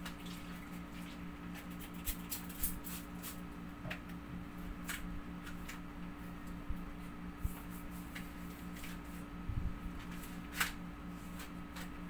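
Scattered small crinkles, taps and clicks of frosted privacy window film being handled and pressed onto a glass door pane, over a steady low hum.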